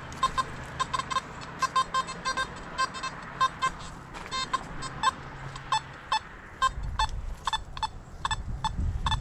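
Metal detector giving short, irregular tonal beeps as its search coil sweeps over buried metal targets. A low rumble builds over the last couple of seconds.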